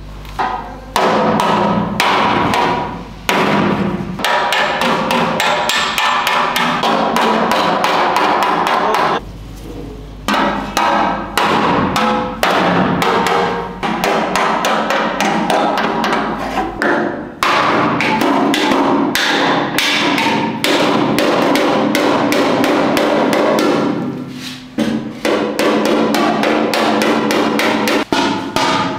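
A steel body hammer beating dents out of a vintage Vespa's sheet-steel side cowl. It strikes rapidly, several blows a second, with the metal ringing, and pauses briefly about a third of the way in and again near the end.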